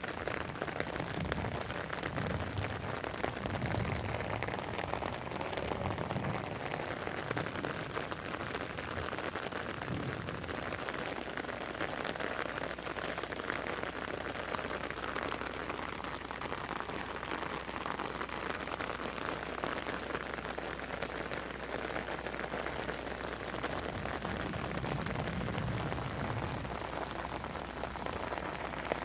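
Steady rain falling and pattering on surfaces, a dense even hiss with countless small drop ticks.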